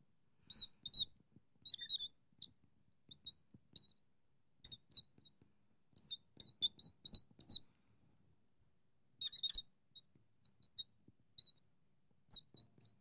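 Marker tip squeaking on a glass lightboard while writing: short, high-pitched squeaks in quick clusters with brief pauses between strokes.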